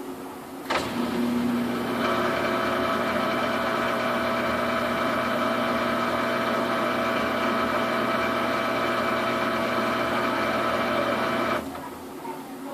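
Samsung washing machine running in its spin stage with a load of duvets: a click, then a steady mechanical whine with several fixed tones that holds for about ten seconds and cuts off suddenly near the end.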